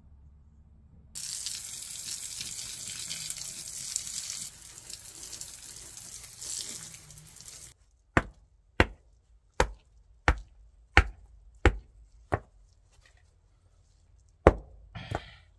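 A steady hiss that cuts off suddenly about eight seconds in, then seven sharp knocks about two thirds of a second apart, and one more knock near the end.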